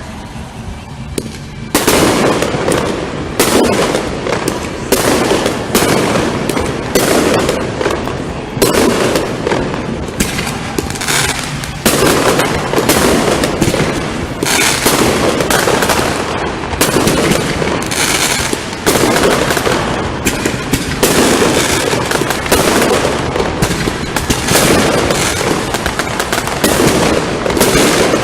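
Aerial fireworks bursting. About two seconds in, a dense, rapid series of bangs starts and carries on without a break.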